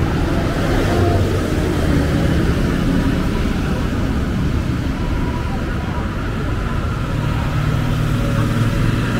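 Busy city road traffic, a steady mix of car and bus engines and tyre noise, with voices of passers-by mixed in.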